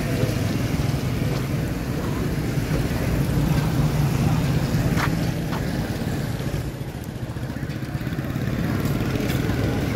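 Street traffic noise: motorcycle and auto-rickshaw engines running past in a steady low rumble, with a brief high chirp about five seconds in.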